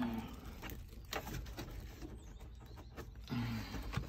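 Faint, irregular clicks and light knocks of hands and a tool working on plastic dashboard trim, with a steady low rumble underneath.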